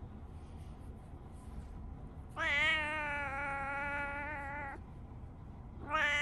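Brown tabby cat meowing in reply to its owner. There is one long, drawn-out meow of about two seconds starting about two and a half seconds in, and a second meow begins near the end.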